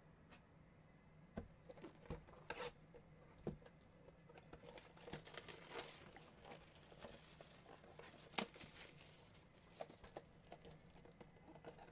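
Clear plastic shrink wrap being torn off a cardboard trading-card box and crinkled, quiet, with scattered sharp taps and knocks as the box is handled.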